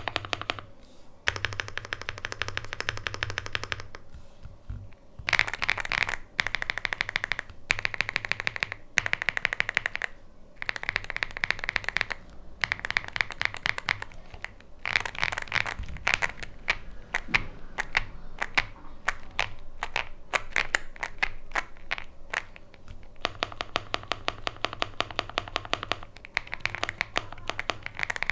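Fast typing on a Heracles 80 mechanical keyboard with factory-lubed Gateron Cream Soda linear switches and GMK keycaps: a quick stream of deep keystrokes in bursts of several seconds with short pauses between them.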